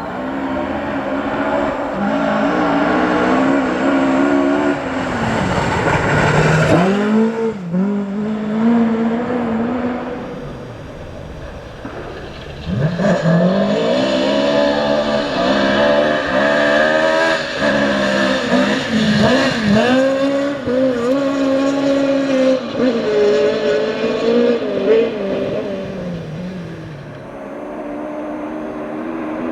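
Ford Escort rally car engines at full throttle, revving up and dropping repeatedly through gear changes and throttle lifts. The sound eases for a few seconds about a third of the way in before another hard run starts.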